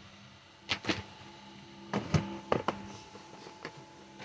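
Clear plastic storage boxes of silk sarees being handled and swapped: a few short sharp knocks and clacks, in groups about a second in, around two seconds in and once more near the end, over a faint steady hum.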